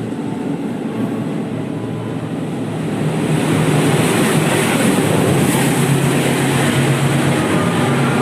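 A train running past, a steady rumble with a low hum and rail hiss that grows louder about three seconds in and then holds steady.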